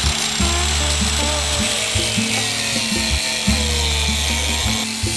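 Electric angle grinder with a thin cut-off disc running and cutting through rusted sheet steel, a steady high whine and hiss, over background music.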